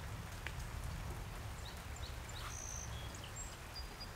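A few short, high bird chirps over a steady low rumble, with a few faint soft taps.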